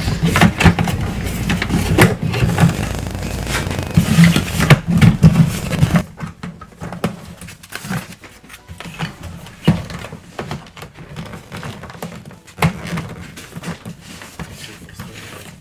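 Plastic toy playset pieces being handled and snapped together: scattered clicks and knocks, busier and louder for the first six seconds or so, then sparser.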